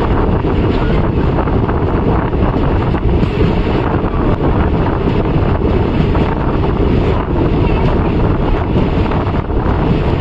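Moving express passenger train: a steady, loud rumble of the coaches running on the track, with wind rushing over the microphone.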